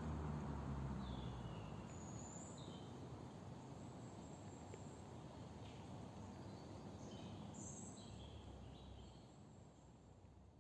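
The low rumble of a Mini Cooper S R53's exhaust fades out over the first couple of seconds. What remains is a faint outdoor background hiss with short bird chirps now and then.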